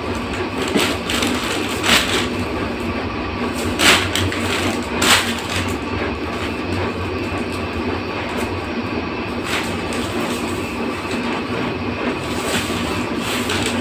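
Plastic packaging crinkling as a new handbag is handled and lifted out of its wrapping, with a few sharp rustles in the first five seconds, over a steady background hum.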